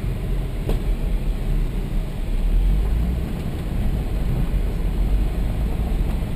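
Volvo S60R's turbocharged five-cylinder engine running at a steady pace with tyre noise on the dirt, heard from inside the cabin as a low, even rumble.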